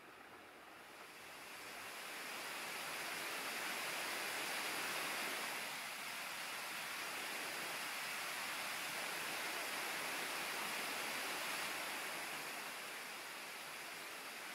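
Steady rush of a cascading stream, fading in over the first two seconds.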